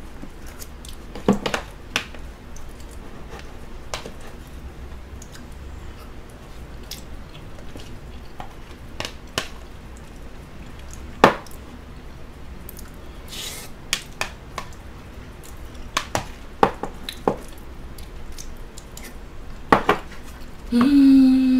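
A metal spoon clinking and scraping against a plastic food container with scattered sharp clicks, amid eating and chewing. A short hummed voice sound comes near the end.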